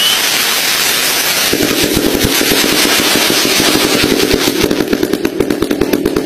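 Firecrackers crackling in rapid succession. The cracks come thicker and faster through the second half, over a steady low hum.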